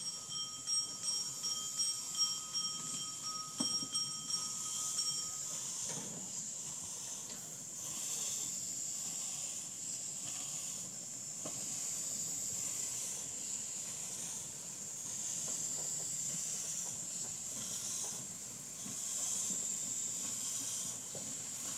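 Steam hissing steadily from a small Marschutz & Cantrell Gypsy steam locomotive, with a few faint knocks. For about the first five seconds a bell rings in quick, even strokes, then stops.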